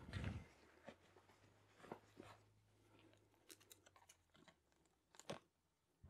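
Faint rustling and scattered small clicks of hands working at a potted grapevine and its wooden stake, with a soft thump right at the start and a sharper click about five seconds in.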